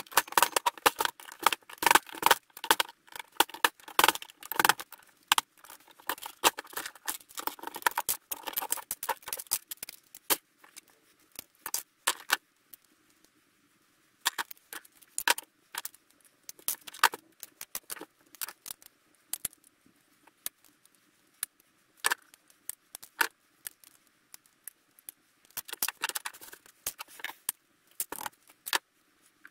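Small metal parts of a VHS player's tape-deck mechanism clinking and clattering as it is taken apart by hand with a screwdriver. Dense clatter for about the first ten seconds, then scattered clicks, with another run of clinks near the end.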